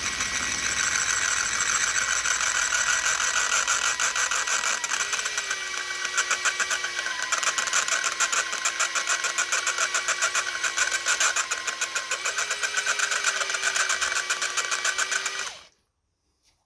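Electric drill running under load, boring into the head of a seized, rounded Allen-head casing bolt, with a fast even chatter and small shifts in speed. The drill bit is blunt and cuts slowly. The drill stops suddenly about a second before the end.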